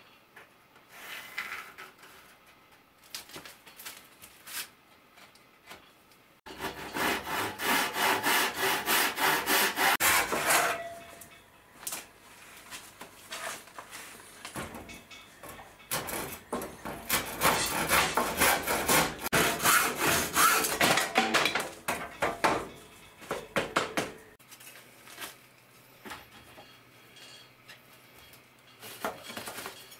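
Handsaw cutting wooden strips with rapid back-and-forth strokes, in two bouts: one of about four seconds starting some six seconds in, and a longer one of about eight seconds from about sixteen seconds in. Light knocks of the wood being handled come between and after.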